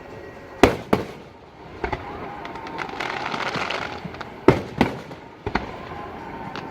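Aerial fireworks bursting: a series of sharp bangs, the loudest just over half a second in, others in pairs around two, four and a half and five and a half seconds in, each trailing off in an echo, with a spell of crackling about three seconds in.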